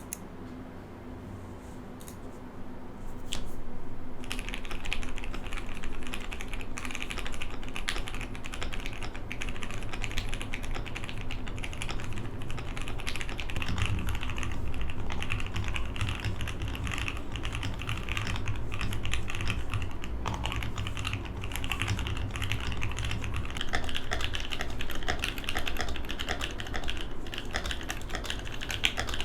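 Custom mechanical keyboard with lubed switches being typed on: a couple of single key clicks, then continuous fast typing from about four seconds in.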